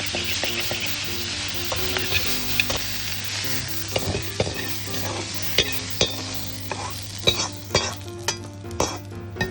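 Sasage (cowpea) pods and meat sizzling as they are stir-fried, with a utensil clicking and scraping against the pan. The sizzle dies down after about five seconds and the clicks stand out more sharply near the end.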